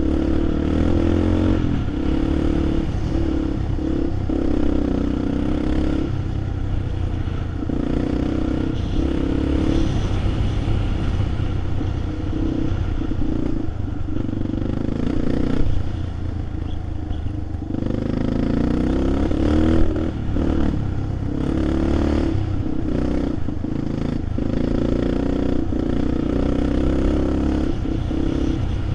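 A vehicle engine running on a rough trail, its pitch rising and falling with the throttle in spells of a few seconds, with clattering and scraping over it.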